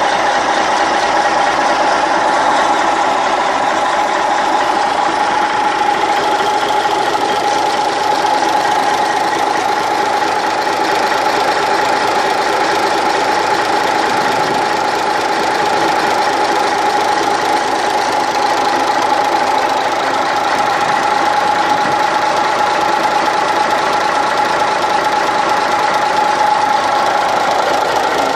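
Gardner 6LX straight-six diesel engine running steadily at an even speed, with a steady tone sitting above the running.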